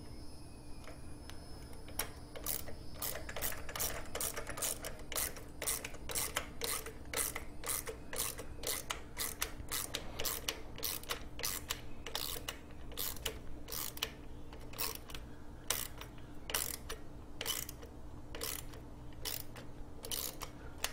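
Hand ratchet clicking in quick, repeated strokes as it drives the coarse-thread screws that mount a carburetor into the engine's plastic intake. The clicks start about two seconds in and run at a few a second over a faint steady hum.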